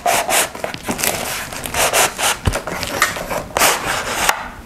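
A cardboard box being opened and handled, its white paper wrapping rustling: irregular scraping, rustling and crinkling, with one dull thump about halfway through.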